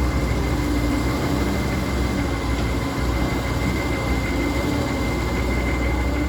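Cat 320D2 GC hydraulic excavator's diesel engine running steadily under working load, with a steady high whine over the low rumble.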